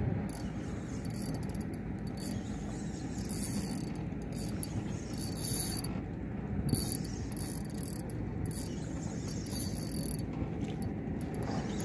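Spinning fishing reel buzzing in repeated short bursts of about a second each while a hooked fish is fought on a bent rod, over a steady low rumble.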